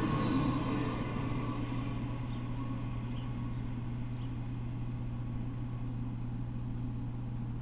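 The tail end of a freight train passing and fading away over the first second or so, leaving a steady low hum and faint outdoor noise.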